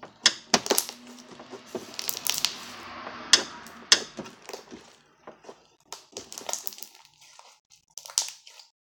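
Slime being kneaded, pressed and squished by hand on a tabletop, giving a run of irregular sharp clicks and pops. The popping is densest and most crackly for the first few seconds, then thins out to scattered clicks.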